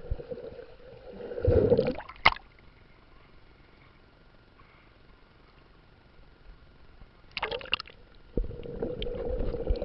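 Water splashing as the camera plunges under the lake surface, a sharp knock, then several seconds of muffled quiet underwater. About seven and a half seconds in, water splashes again as it breaks the surface, followed by sloshing.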